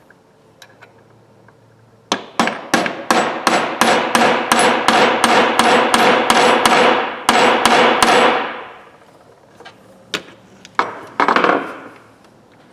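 Hammer tapping a punch to drive a part out of a Snap-on ratchet: a quick run of ringing metal strikes, about four a second, that starts about two seconds in and goes on for some six seconds with a brief break, then a few single taps near the end.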